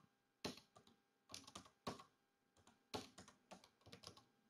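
Typing on a computer keyboard: quiet key clicks in short runs with brief pauses between them.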